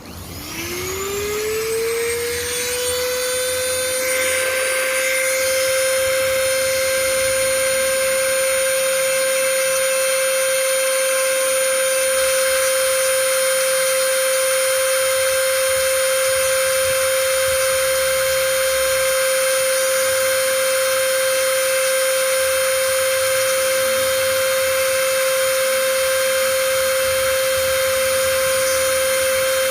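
Small electric motor starting up, its whine rising in pitch over the first few seconds and then running at a steady high pitch.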